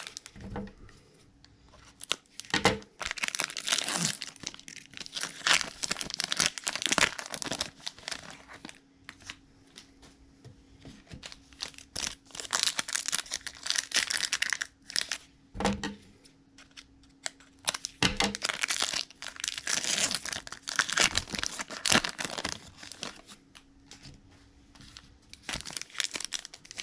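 Plastic wrapping of a Panini Contenders trading card blaster box and its packs being torn open and crinkled by hand, in three long bouts of rustling with a few soft knocks between them.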